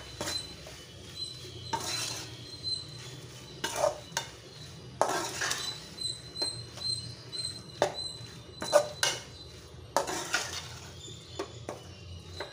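Steel spoon scraping and knocking against a metal kadai as prawns in a thick onion masala are stirred, in irregular strokes with a few louder knocks.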